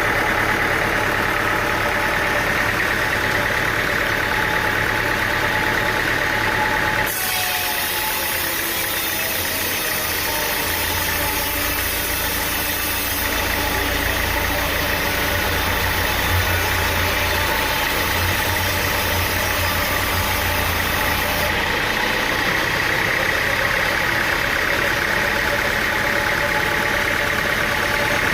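Sawmill machinery running steadily with an engine drone. The sound changes abruptly about seven seconds in and again about twenty-one seconds in.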